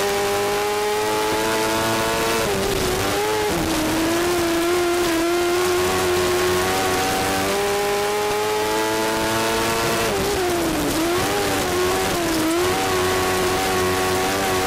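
A 1000cc micro sprint car's engine at racing revs, heard from the cockpit, its pitch climbing along the straights and dropping as the driver lifts for the corners, twice, before it climbs again.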